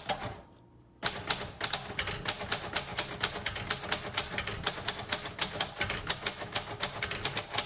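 1938 Royal Model O manual typewriter being typed on with a firm touch: after a short pause, an even run of sharp keystroke and type-bar strikes starts about a second in, several a second.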